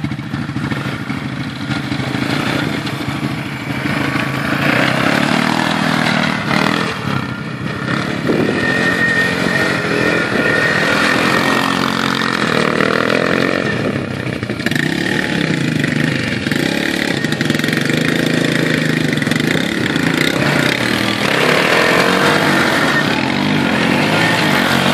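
Quad bike (ATV) engine running and revving, its pitch rising and falling as the throttle is worked.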